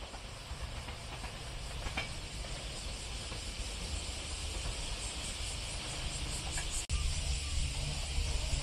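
Steady outdoor hiss with a fluctuating low rumble, typical of wind on the microphone, cut off abruptly about seven seconds in and picked up again with a stronger low rumble.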